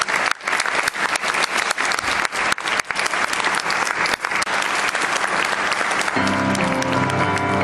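Audience applauding; about six seconds in, a grand piano begins playing as the clapping dies away.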